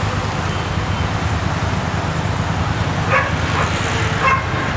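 Outdoor street ambience with a steady low rumble. Two short, sharp calls come through about three and four seconds in.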